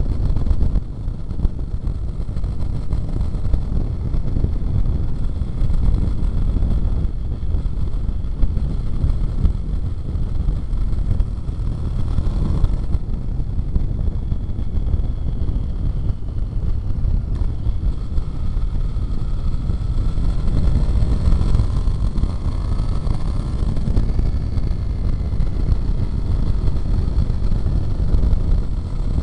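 Sportbike at road speed, its engine and exhaust heard from right beside the silencer under a heavy, steady wind rumble on the microphone.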